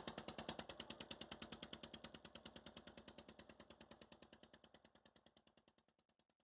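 Motorboat engine running with a rapid, even knocking, about ten beats a second, fading away to nothing.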